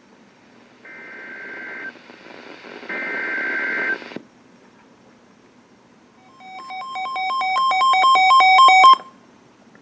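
Emergency Alert System SAME header: two data bursts of about a second each, screechy two-tone digital chirps. They are followed by a rapid two-tone electronic beeping that grows louder for about two and a half seconds and stops abruptly.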